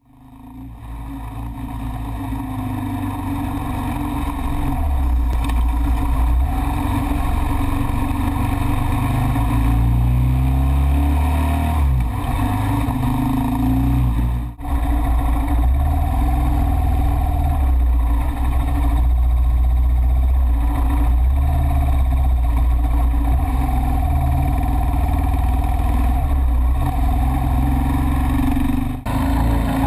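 KTM 690 SMC R supermoto's single-cylinder engine running under way, its pitch rising and falling with the throttle. The sound swells up over the first few seconds and drops out briefly about halfway through.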